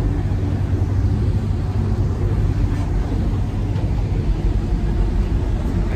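Rescue boat's engines running steadily underway, heard from inside the wheelhouse: a constant low drone with an even hiss above it.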